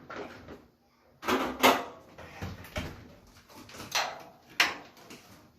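Sheet-metal dryer panels and parts being handled during disassembly: a series of knocks and scrapes, four or five of them spread over several seconds.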